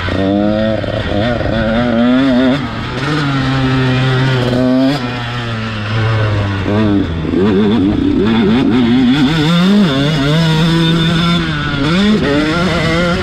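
KTM SX 125's two-stroke single-cylinder engine revving under load on the motocross track. Its pitch climbs and drops again and again as the throttle is opened and shut, heard from the bike itself.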